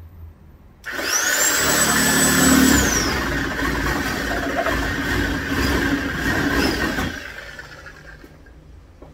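Corded reciprocating saw running and cutting into the cross member behind the grille opening. It starts about a second in, its motor whine climbing and then dropping as the blade bites, and stops about seven seconds in.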